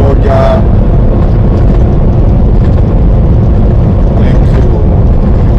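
Steady, loud low rumble of a semi-truck driving down the road, engine and road noise together. A brief faint pitched sound comes through about half a second in, and again around four seconds in.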